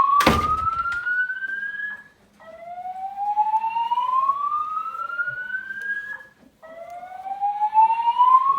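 EST-3 voice-evacuation speakers sounding the slow 'whoop' alert tone: a pitch that rises steadily for about four seconds, then breaks off briefly and starts again low, repeating about three times. A sharp knock sounds just after the start.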